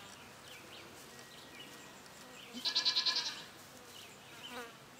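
A Nigerian dwarf goat gives one short, high, quavering bleat about two and a half seconds in.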